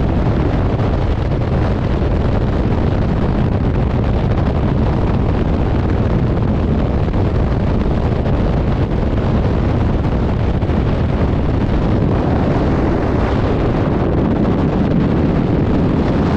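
Loud, steady rush of freefall wind buffeting the camera's microphone.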